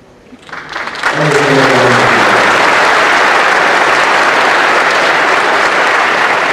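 Audience applause. Clapping breaks out about half a second in and swells within a second into loud, steady, dense applause. A short voice sound is heard briefly in the first couple of seconds.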